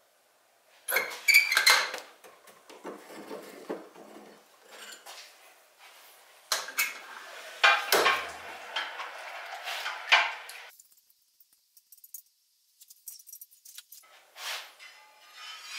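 Metal clinking and clattering of steel tongs against the blade and an electric heat-treat oven as a hot knife blade is handled for an oil quench. The clatter falls quiet for about three seconds past the middle, then the clinks resume.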